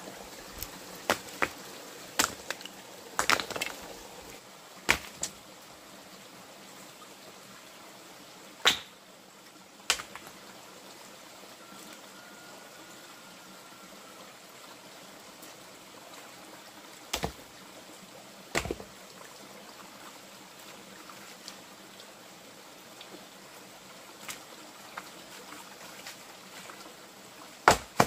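Scattered sharp knocks and taps, about ten of them at uneven intervals with long gaps between some, over a steady faint hiss.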